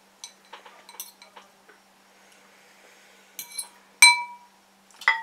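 Eating utensil clinking against a bowl while twisting noodles: a few light clicks, then a louder clink about four seconds in that rings on briefly.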